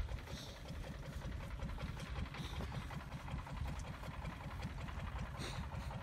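Wind buffeting the microphone: an uneven low rumble, with a few faint brief hisses about three times.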